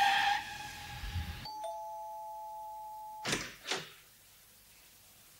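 The tail of a car's tyre squeal dies away. About a second and a half in, a two-tone doorbell chime sounds: two steady notes, the lower entering just after the higher, held for about a second and a half and then cut off. Two short noises follow.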